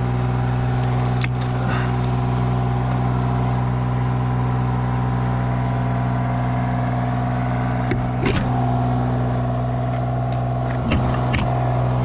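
An engine running steadily at a constant speed, a low even drone, with a few light knocks and clicks over it about a second in, past the middle and near the end.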